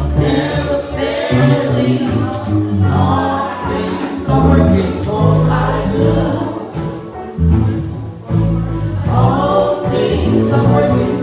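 Gospel music with a choir singing over a bass line.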